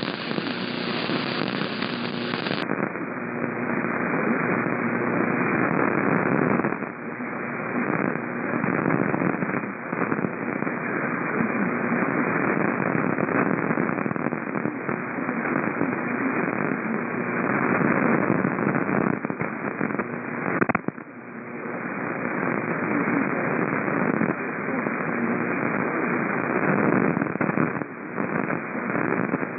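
Radio receiver static: a steady crackling hiss with no program audio, which turns duller about three seconds in and dips briefly about seven and about twenty-one seconds in.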